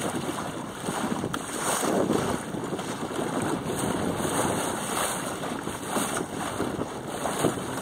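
Wind buffeting the microphone of a mast-mounted camera on a small sailing dinghy under way, coming in uneven gusts, with the rush of choppy water beneath.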